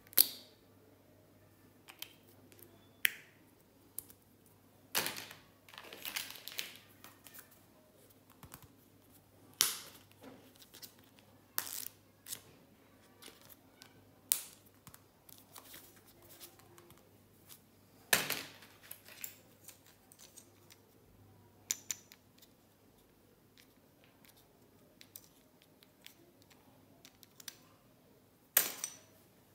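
Hands handling small plastic stationery items: scattered sharp clicks, taps and short rustles of plastic, with quiet gaps between them.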